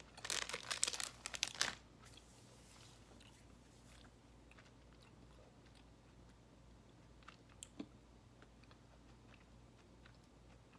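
Close-up chewing of a sour sugar-coated fruit bite: a burst of crunchy chewing for about the first two seconds, then faint mouth sounds with a couple of small clicks about three-quarters of the way through.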